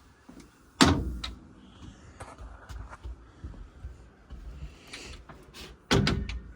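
Two loud clunks, about a second in and near the end, with lighter clicks and knocks between, as a door or hatch on a fifth-wheel camper is opened and worked.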